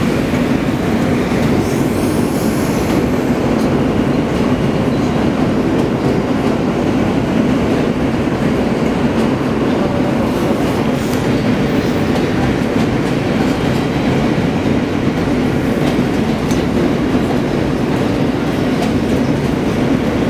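New York City subway J train heard from inside the car while running at speed: a steady, loud rumble and rattle of steel wheels on the rails.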